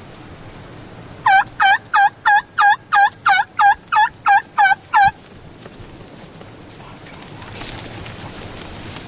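A series of about a dozen turkey yelps, evenly spaced at about three a second, each a short, loud note that dips and rises in pitch; they stop about five seconds in, leaving a steady background hiss.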